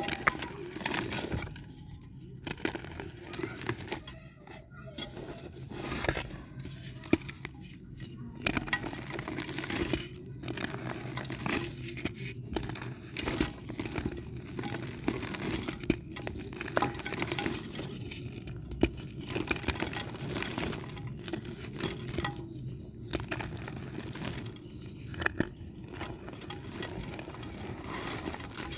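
Dried white dirt being crushed and crumbled by hand into a clay pot: continuous irregular crunching and crackling with frequent sharp snaps as the dry pieces break. A steady low hum runs underneath.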